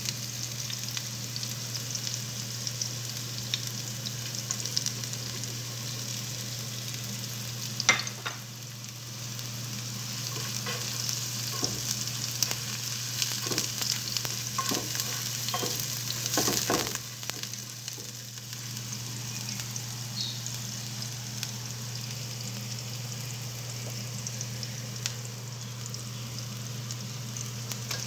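Chopped aromatics sizzling steadily in hot oil in a nonstick frying pan, with a few sharp clicks of a utensil against the pan about a quarter of the way in and again around the middle. A steady low hum runs underneath.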